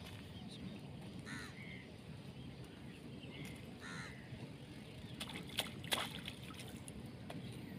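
A bird calling a few short harsh calls over a steady outdoor background, with a few sharp clicks about five to six seconds in as fishing tackle is handled.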